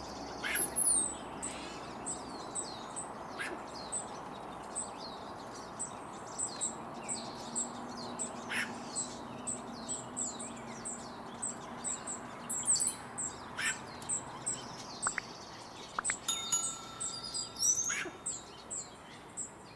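Hummingbird song: a long run of thin, very high, scratchy notes at about two to three a second, with other high falling chirps mixed in. A brief chime-like ringing sounds near the end.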